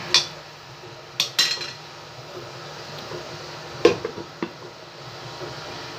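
A ladle clinks a few times against a cooking pan, then a glass pot lid with a metal rim is set on the pan with a loud clank about four seconds in, followed by two smaller knocks.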